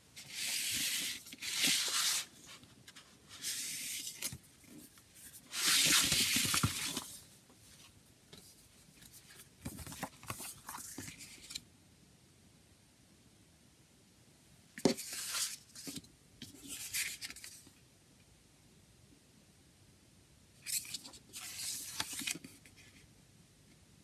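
Paper rustling and crinkling in several separate bursts as a folded paper insert and a booklet from a CD digipak are handled and unfolded, with one sharp tap partway through.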